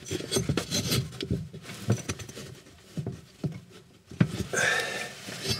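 Gloved hand handling a metal oven fan blade that is seized on its motor shaft: irregular light knocks, taps and rubbing, with a longer scrape near the end.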